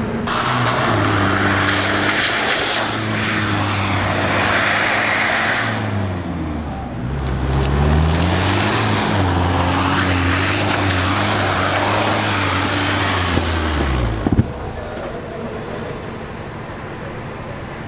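Off-road 4x4 engine running hard at a steady pitch. The pitch dips about six seconds in and climbs back before holding again, then breaks off suddenly about fourteen seconds in, leaving quieter engine noise.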